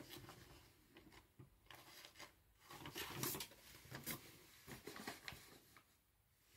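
Faint, scattered rustles and small taps of papers and a pen being handled at a desk.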